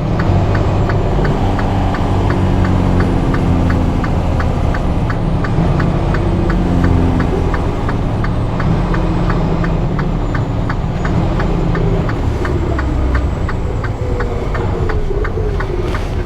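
Semi-truck diesel engine running as heard inside the cab, its note stepping up and down as the truck slows, with a steady rapid ticking, about three or four a second, that stops near the end.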